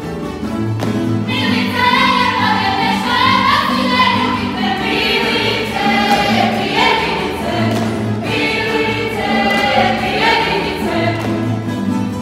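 A group of voices singing a folk song from Hrvatsko zagorje, with a small string band of guitars and other plucked strings playing along. The singing comes in about a second in.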